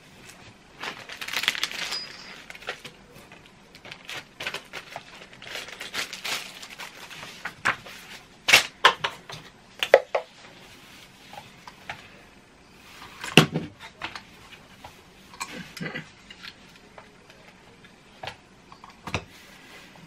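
Hands handling a LEGO set and its instruction booklet: paper pages rustling, with scattered sharp clicks and knocks of plastic pieces and the booklet on the tabletop.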